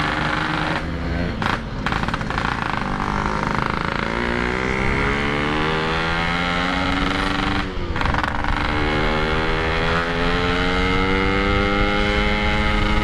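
Yamaha RX-King's 135 cc two-stroke single engine accelerating hard, its pitch climbing steadily, with short drops at gear changes about one and a half and eight seconds in. The rider says the engine is still untuned and feels short of power.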